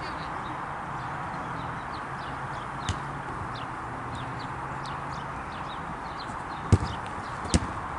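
A football being kicked, with sharp thuds about three seconds in and twice close together near the end, the last two loudest. Behind them are a steady outdoor background noise and many short, high bird chirps.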